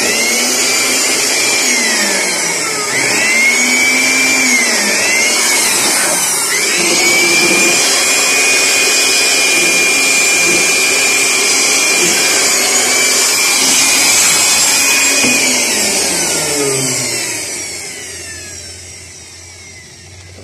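High-speed electric motor of a handheld cleaning tool running at full speed while clearing dust from inside an air-conditioning unit. Its whine dips and climbs again several times, then winds down near the end as it is switched off.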